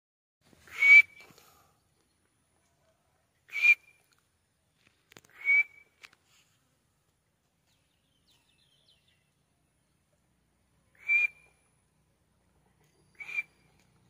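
White (pale) francolin calling: five short whistled calls a few seconds apart, with a long pause in the middle. Each call is a brief harsh note that ends in a short clear whistle.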